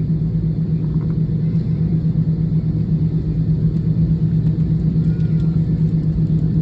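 Steady low rumble and drone of a jet airliner's engines heard inside the cabin while the aircraft is on the ground before takeoff, with a constant low hum.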